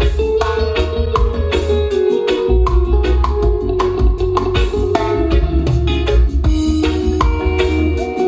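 A test song with a drum kit and pitched instruments, played loud through a PA system whose ACR 18700 MK I DLX 18-inch subwoofer in a mini-scope box carries heavy bass. The bass drops out briefly about two seconds in.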